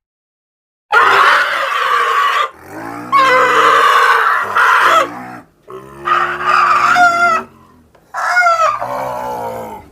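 Custom Godzilla-style monster roar sound effect, layered from animal calls: four loud screeching roars one after another, the later ones ending in falling pitch.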